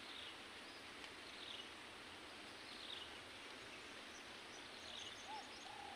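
Faint outdoor quiet: a low steady hiss with faint, high, falling bird chirps that recur every second or so, and two short, lower whistles near the end.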